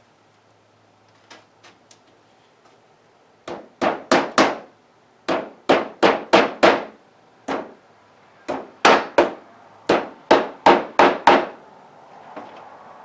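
Hammer striking a wooden picture frame: a few light taps, then about nineteen sharp blows in quick runs of three to five.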